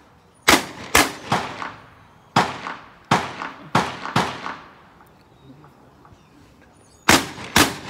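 Gunshots at an outdoor range, about nine in all, each a sharp crack with an echo trailing off. Seven come in quick groups over the first four seconds, then after a pause two more come close together near the end.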